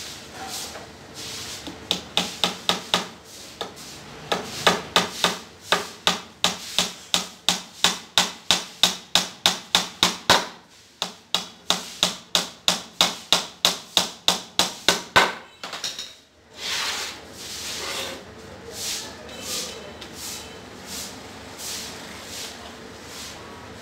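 A hammer driving small nails into a wood-grain laminated board panel: a long run of sharp knocks, about four a second, with a short break partway through. After about sixteen seconds the knocking stops, leaving softer knocks and rubbing as the boards are handled.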